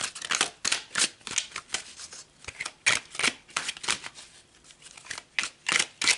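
Influence of the Angels tarot deck, gold-edged cards, being shuffled by hand: a quick, irregular run of card slaps and riffles, several a second.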